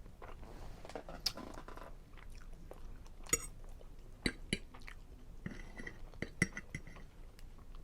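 Close-up mouth sounds of a person chewing a creamy seafood linguine Alfredo with shrimp and scallops: irregular wet smacks and small clicks of eating.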